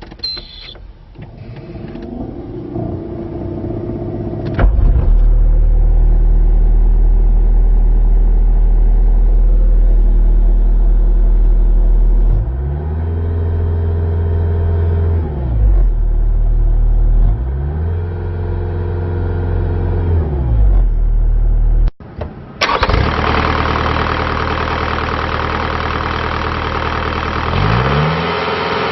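Bobcat T190 track loader's Kubota V2403 four-cylinder diesel engine cranked over and catching after about four and a half seconds, then running steadily. It is revved up and back down twice. After a cut it runs louder, with another rev beginning near the end.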